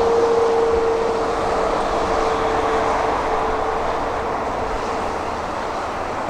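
Heavy diesel construction machinery running steadily, with a steady whine that fades away over the first few seconds.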